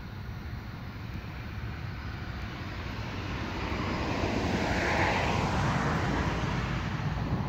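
Freight train approaching with a rising rumble and rush of noise, growing louder and loudest around five seconds in; no horn is sounding.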